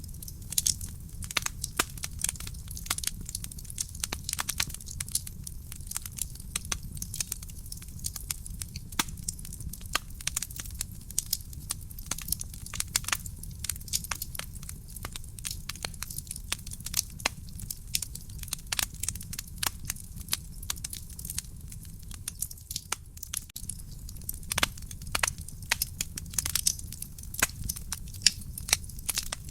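Wood fire burning in a fireplace: dense, irregular crackling and popping over a low steady rumble of the flames.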